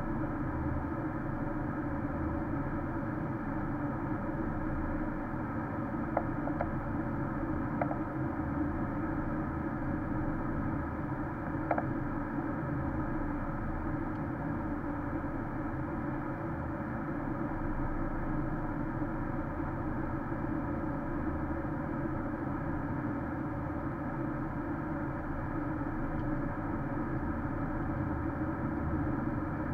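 Steady in-cabin road and engine noise of a Porsche Cayenne S driving at speed on a snow-covered highway, with a few faint clicks partway through.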